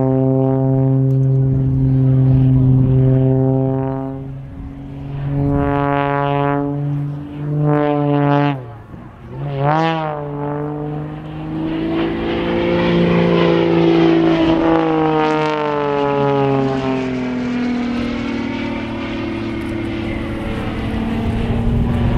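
Aerobatic propeller plane's piston engine and propeller in flight, its pitch and power changing through the manoeuvres. It holds a steady drone at first, then gives short surges and a sharp dip in power about nine seconds in. After that it makes slow rising and falling sweeps in pitch as the plane climbs and passes.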